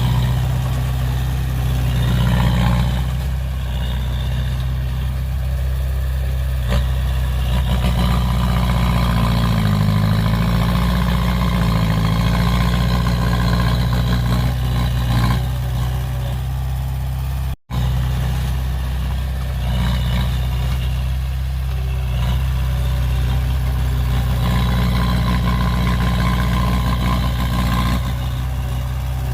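Heavy diesel engine of earthmoving equipment running steadily, its note rising and falling under load about ten seconds in. The sound cuts out for an instant just past halfway, then carries on.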